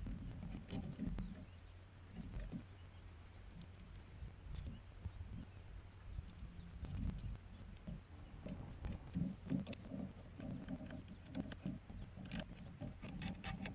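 Faint, scattered clicks, taps and soft knocks of hand tools and metal parts being handled while Lucas wiper motors are fitted to a Land Rover, busier in the second half.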